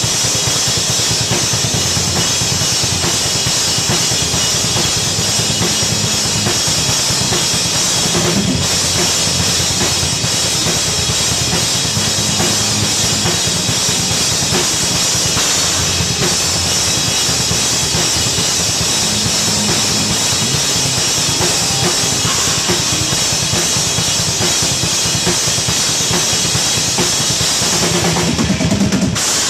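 A band playing loud: a drum kit with bass drum, snare and cymbals, together with an electric bass and an electric guitar through amplifiers. The playing breaks off for a moment near the end.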